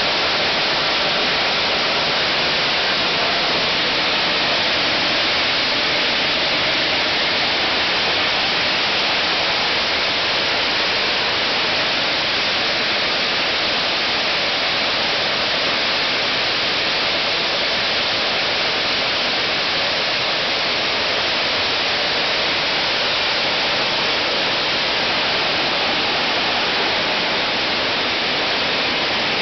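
Plastic-bottle label-removing machine running: a loud, steady rushing noise of plastic bottles churning in its rotating drum while the labels are stripped off.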